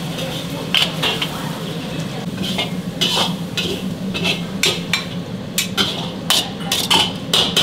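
Metal ladle and slotted skimmer scraping and clanking against an iron wok while stir-frying and plating, in quick irregular strikes, with a steady low hum underneath.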